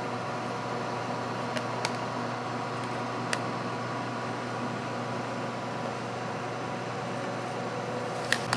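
Steady mechanical hum, with a few light clicks of a metal spoon against a plastic tub as sliced black olives are scooped out. The loudest pair of clicks comes near the end.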